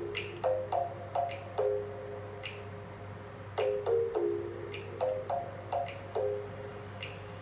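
Music played back through a Victor AX-990 stereo integrated amplifier: a sparse melody of about a dozen short, sharply attacked notes that die away quickly. A steady low hum lies underneath.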